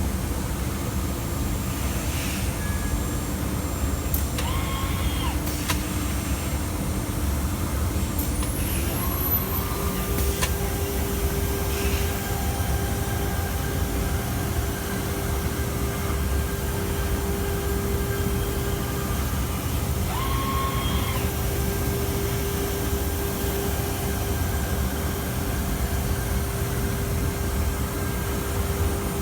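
Ranger 6321 vertical CNC panel router running steadily, its spindle and dust extraction milling a rock wool panel with a diamond-tipped tool, a steady machine noise with a hum that steps up in pitch about ten seconds in.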